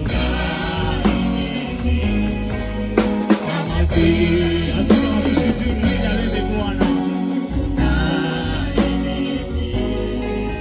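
Gospel-style Christian music with singing voices, a choir, drums and a steady bass.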